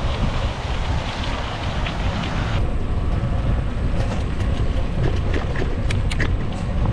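Wind rumbling on the action camera's microphone while cycling, mixed with road and tyre noise. The hiss thins out suddenly about two and a half seconds in, and a few sharp clicks come near the end.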